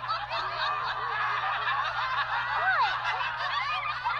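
A group of cartoon characters laughing together, many high-pitched chuckles and giggles overlapping, over a steady low hum.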